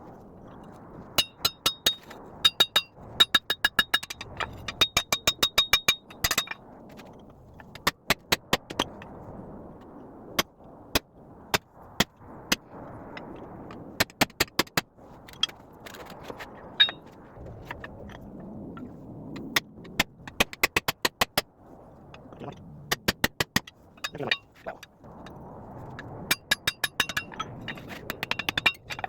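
Hammer blows on an anvil in quick runs of several strikes with short pauses between, the anvil ringing after many of the blows, as a square steel bar is forged. A steady low rushing noise runs underneath.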